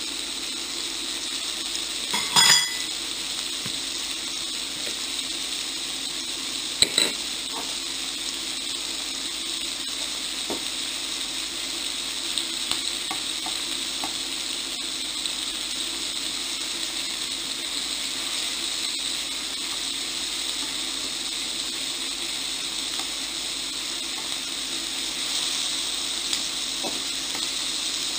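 Kebabs, tomatoes, red onion and sliced garlic sizzling steadily in a hot oiled frying pan while being stirred. Two sharp knocks about two and a half and seven seconds in, with a few faint clicks later.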